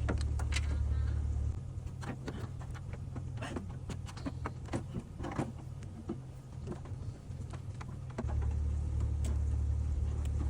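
Car engine idling with a steady low drone that drops in level about a second and a half in and comes back up near the end, with scattered clicks and knocks of handling.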